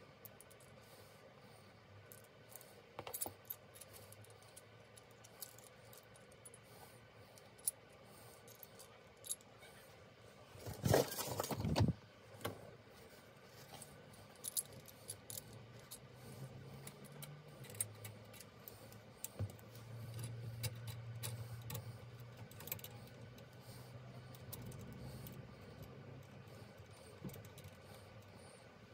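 Small metal parts clinking and clicking as a vintage bicycle saddle's clamp pieces, washers and nuts are handled and fitted onto its steel rails. About eleven seconds in there is a louder scraping rattle lasting about a second as the saddle itself is moved.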